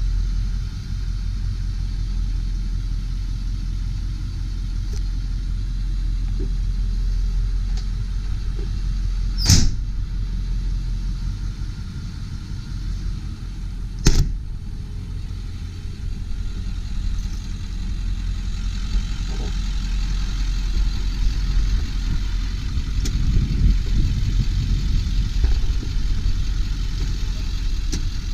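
1999 Ford F-250 Super Duty's 7.3-litre Power Stroke turbo-diesel V8 idling steadily, with two sharp clicks about nine and fourteen seconds in.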